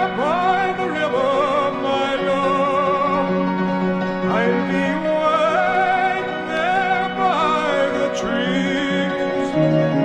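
Music: a man singing long notes with a wide vibrato in an operatic style, rising and falling in phrases, over steady held instrumental notes.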